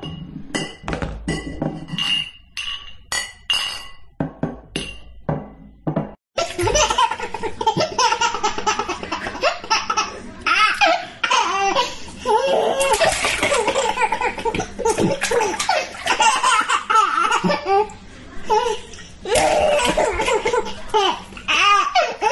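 Glass bottles clinking together in a series of separate ringing strikes for about six seconds. Then a baby laughs and babbles continuously.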